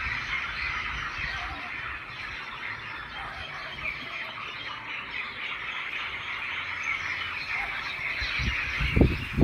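Dense, continuous chatter of many small birds calling together in the trees. A couple of low thumps come near the end.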